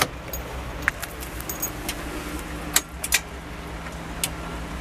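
Kubota tractor's diesel engine idling steadily, with several sharp jingles and clicks from the key ring hanging off the ignition key.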